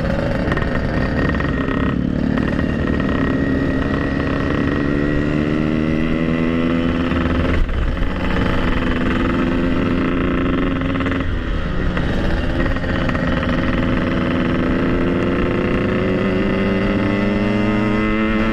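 Yamaha RX-King single-cylinder two-stroke motorcycle engine running under way, its note climbing slowly and dipping briefly a few times before rising again.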